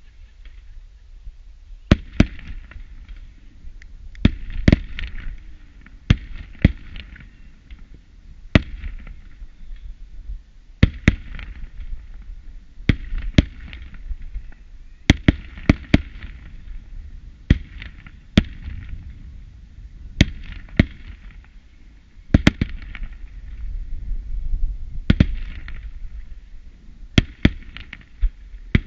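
Fireworks display: sharp bangs every second or two, often two in quick succession, with a fainter hiss between them.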